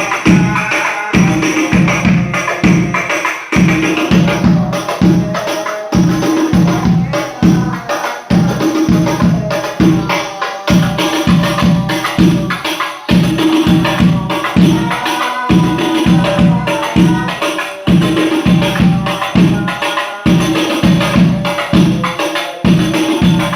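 Sholawat music on rebana frame drums, played as a dense, driving drum pattern that repeats about every two and a half seconds, with jingles and voices singing over it.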